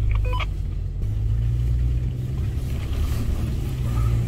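Off-road 4x4's engine running at low revs with a steady low rumble as the vehicle moves off slowly on a muddy track.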